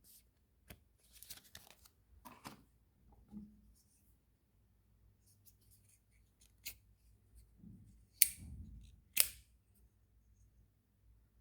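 A small pocket utility knife and its packaging being handled: scattered light clicks and rustles, then two loud sharp clicks about a second apart near the end.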